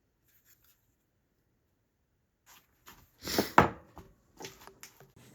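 Short handling noises: a few knocks and rustles, loudest about three and a half seconds in, after a stretch of near silence.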